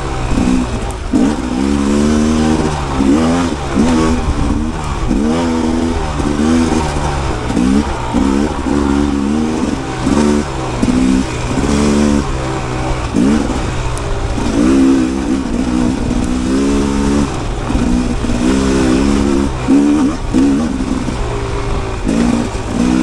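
Rieju MR 300 Pro's single-cylinder two-stroke engine revving up and down over and over as the throttle is worked, its pitch rising and falling every second or so.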